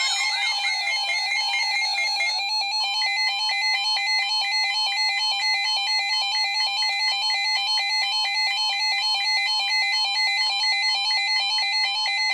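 Electronic emergency-alert tone announcing a flood warning: a warbling multi-tone signal that switches about two seconds in to a fast, steady pulsing beep of several tones at about three pulses a second.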